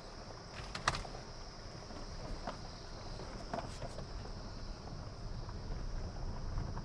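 Crickets chirping steadily in one high-pitched drone, over a low rumble that grows toward the end, with a few scattered clicks, the sharpest about a second in.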